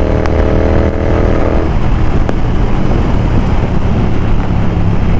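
Royal Enfield Continental GT 650's parallel-twin engine running at steady high road speed under heavy wind rush. About a second and a half in, the engine note drops away and only the wind and road noise are left.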